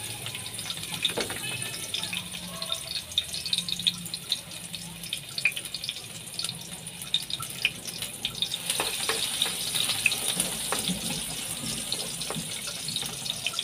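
Sliced garlic frying in hot cooking oil in a wok: a steady sizzle full of small crackles and pops. A spatula stirs the garlic in the pan near the end.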